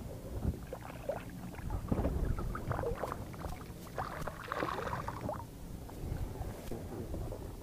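Knocks and rustling from handling aboard a small fishing boat, over a steady low rumble of water and wind against the hull. The handling noise is busiest in the middle.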